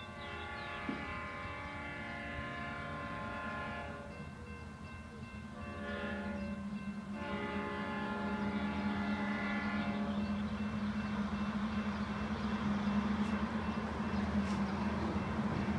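Union Pacific excursion train's locomotive horn sounding several blasts as the train approaches: a long one, a short one, then another long one. Under and after the last blast, the deep steady drone of the locomotives grows louder as they draw near.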